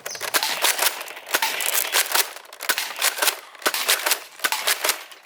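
Plastic toy blaster being handled: a dense, irregular run of sharp plastic clicks, rattles and rustling.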